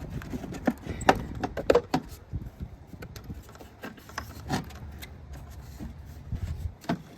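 A flathead screwdriver prying at plastic parts and clips in a car's engine bay, with scattered irregular clicks, taps and knocks of metal on plastic and tool handling, over a low steady rumble.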